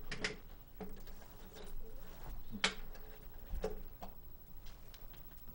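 Handling noises as a framed painting on a wood panel is set on an easel: a few scattered knocks and rustles, the sharpest about two and a half seconds in, with a couple of dull low thumps.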